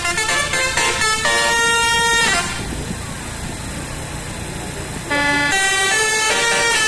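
Bus 'telolet basuri' multi-tone air horn playing a melody of short pitched toots that step from note to note. About two seconds in it stops, leaving only engine and road rumble for roughly three seconds. Then the melody starts again.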